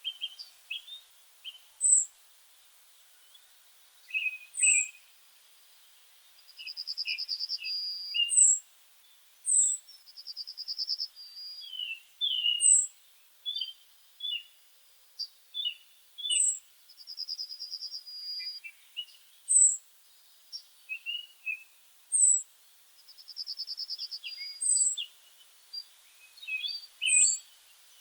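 Songbirds singing: a high, sharp, downslurred note repeats every two to three seconds, rapid trills about a second long come every six seconds or so, and short chirps are scattered between them.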